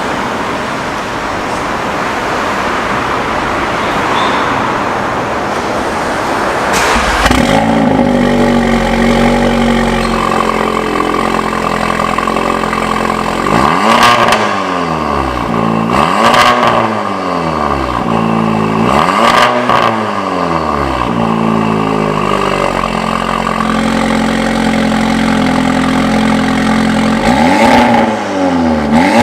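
Volkswagen Golf R's turbocharged 2.0-litre four-cylinder, fitted with a 034Motorsport downpipe and Borla cat-back exhaust, catches about seven seconds in and idles. It is blipped in several short revs that rise and fall.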